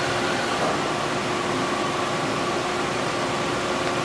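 Steady hum and hiss of a Cincinnati CNC machine running, with faint steady tones in the hum.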